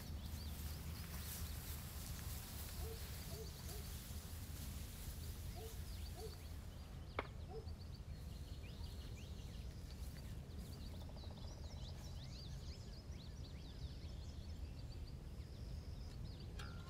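Outdoor ambience of birds chirping, many short high calls, over a low steady rumble. A few short low notes come about three to six seconds in, and a single sharp click about seven seconds in.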